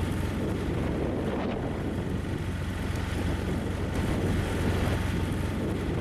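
Handheld gas torch roaring steadily as it heats the asphalt around a manhole frame, with a low hum running under it.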